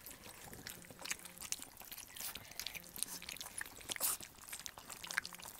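Weaning-age bullmastiff puppies eating wet puppy mush from a shared pan: a busy stream of irregular small wet smacking and slurping clicks from several mouths at once.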